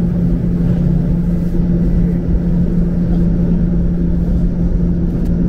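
Electric streetcar running, heard from on board: a steady low hum over a constant rumble.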